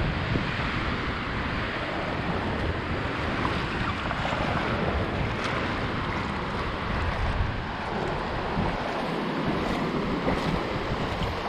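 Small Baltic Sea waves washing steadily onto a sandy shore, with wind buffeting the microphone.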